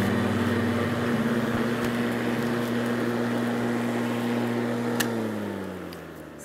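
Cobra MX3440V 40V cordless lawnmower's electric motor and blade running with a steady hum while mowing grass, then winding down with falling pitch after a click about five seconds in.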